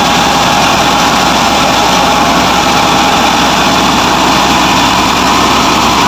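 Combine harvester running steadily and loudly while its unloading auger pours wheat grain from the spout into a trailer.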